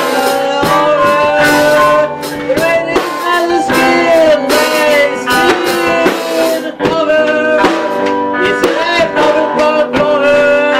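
Live band music led by an electric guitar, its notes often bending and gliding, with frequent short struck accents.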